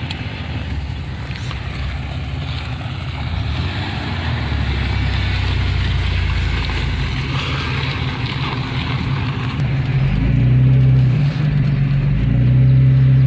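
Engines running and tyres on dirt as a lifted first-generation Ford Explorer drives off across a gravel lot. About ten seconds in the sound gets louder, with a steady engine drone and gravel road noise of driving, heard from inside a following Jeep Cherokee.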